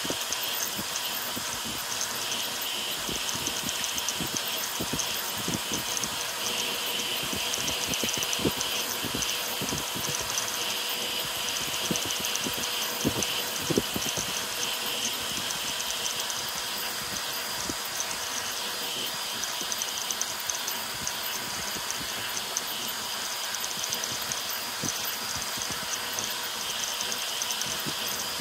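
Ender 5 Pro 3D printer converted to a ZeroG Mercury 1.1, printing at high speed (400 mm/s, 40k acceleration): its stepper motors whir and buzz as the toolhead darts back and forth, over a steady rushing hiss of air from the CPAP part-cooling blower. A few sharp ticks come near the middle.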